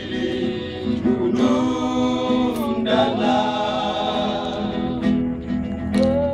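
Men's vocal group singing together in harmony, their voices holding long notes that shift every second or two.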